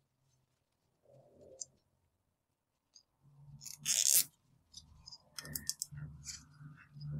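Plastic cable tie being zipped tight around a rubber CV boot: a short ratcheting zip about four seconds in, then a run of small clicks and handling noise.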